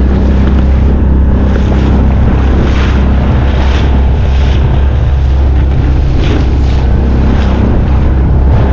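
Inflatable boat running through choppy sea: a loud, steady low rumble of its motor and wind on the microphone, with splashes as the bow slaps into the waves about once a second.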